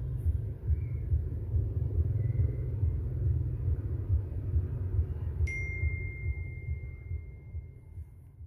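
A low, steady rumble runs throughout. About five and a half seconds in, a smartphone notification chime gives one clear, high ding that keeps ringing for about three seconds. All of it fades out near the end.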